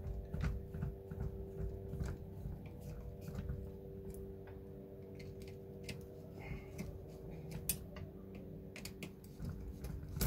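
Scattered small clicks and ticks of a hex driver turning screws into the plastic rear suspension link mounts of an RC crawler, over a steady low hum.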